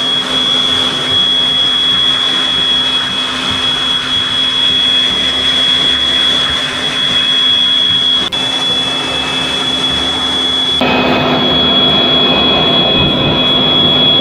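Electric high-pressure washer running: its motor holds a steady high whine over the hiss of spraying water. The sound shifts about eleven seconds in.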